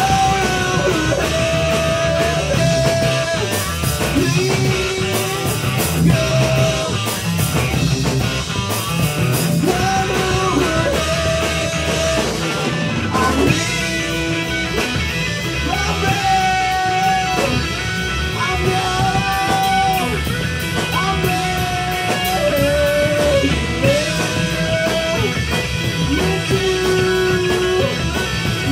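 Live heavy rock band playing: distorted electric guitar, bass and drums with cymbals, under a slow melody of long held notes that steps up and down.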